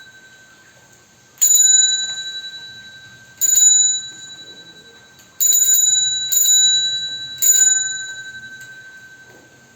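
Bicycle bell rung five times, each a clear chime that dies away over a second or two. The rings come about two seconds apart, and the last three come closer together.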